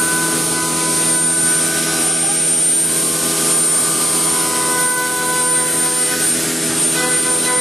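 A woodworking machine running steadily with a constant drone and a high whine.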